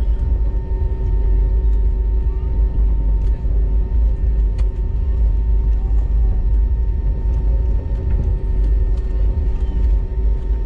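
Steady low rumble inside the cabin of a GoAir Airbus A320 taxiing at low speed, with the jet engines' steady hum over it and a few faint ticks.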